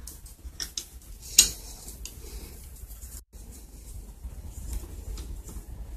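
Phillips screwdriver turning out the small screws on the top cover of a Zama carburetor: a scatter of light metallic clicks and scrapes, with one sharper click about a second and a half in.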